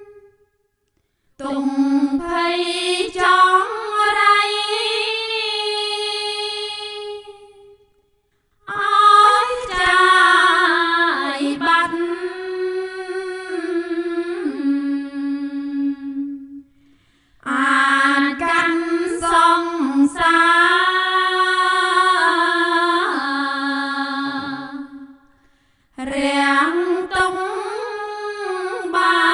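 A single voice sings a Theravada Buddhist chant in slow, melodic, held notes. It comes in four long phrases with short silences between them.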